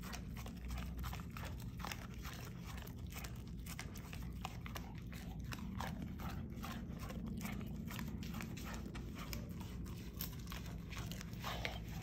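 Golden retriever puppy chewing, an irregular run of small crunching clicks.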